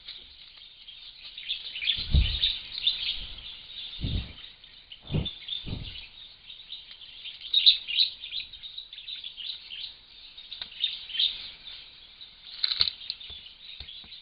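Dull knocks and rubbing close to the microphone about two, four, five and six seconds in, and once more near the end, as a chimpanzee handles the camera trap. Behind them, steady high chirping of birds.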